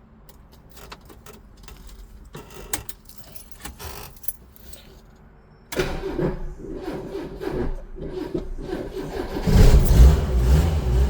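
Keys jingling and small clicks, then a Ford Corcel Belina's four-cylinder engine cranking on the starter for a few seconds before it catches and runs with a loud low rumble near the end.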